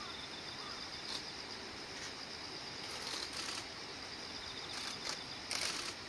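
Steady outdoor background hiss with a faint, high, steady insect trill, broken by a few brief hissing bursts, the longest near the end.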